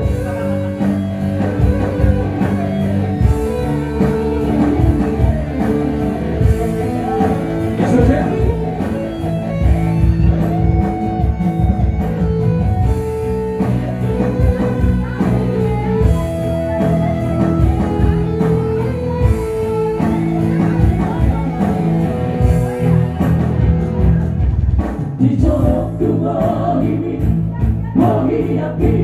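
Live amplified music: an electronic keyboard playing sustained chords under male vocals sung into handheld microphones.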